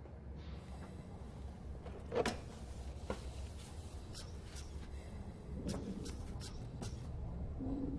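Low steady room hum with a handful of small sharp knocks and clicks, the loudest about two seconds in. A short rising moan begins near the end.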